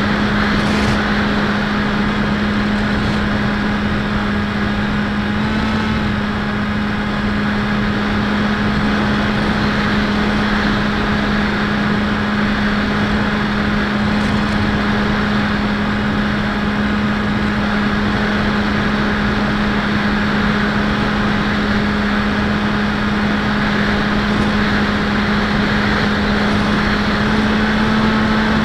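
Electric brushless outrunner motor and propeller of an RC foam plane in flight, recorded on board: a steady drone holding one pitch, rising slightly near the end, over a constant rush of air.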